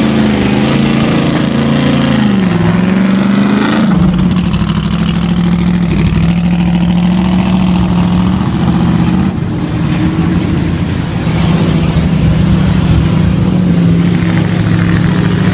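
Racing Ford V8 engines of Shelby Cobra Daytona Coupes and AC Cobras running loud at low revs as the cars pull away slowly, the pitch wavering with small throttle changes. A deeper, fuller engine note comes in about four seconds in as another car draws close.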